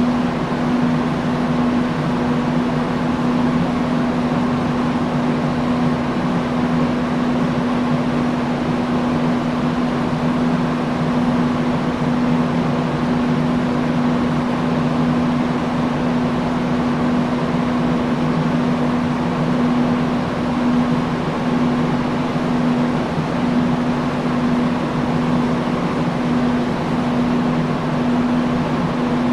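Industrial fan running steadily: a constant rush of moving air with a steady low hum from the motor.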